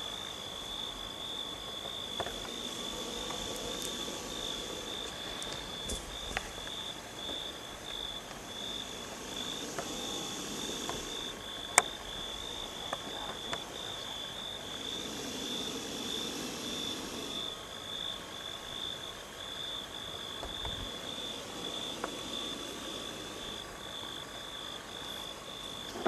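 Night insect chorus: a steady, high, rapidly pulsing trill, with a few faint clicks and one sharper click about twelve seconds in.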